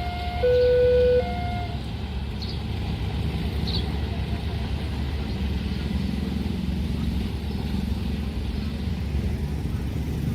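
Railway level-crossing warning alarm sounding its alternating two-tone signal, cutting off about two seconds in. A steady low rumble of road vehicles follows.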